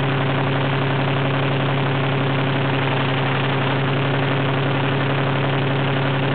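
SNCF X 2800 railcar's MGO V12 diesel engine running under power with a steady, unchanging pitch.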